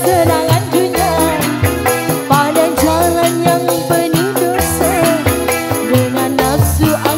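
Live dangdut koplo band playing: a female singer's melody over electric guitars, bass, keyboard and drums, with steady, evenly repeating high percussion strokes.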